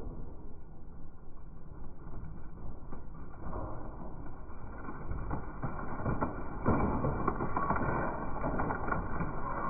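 Kobelco mini excavator running and crushing an object, with a steady mechanical noise that grows louder about two-thirds of the way in, and scattered sharp cracks and crunches.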